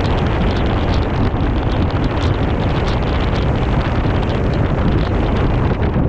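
Strong wind buffeting the microphone in a loud, steady rush with no breaks.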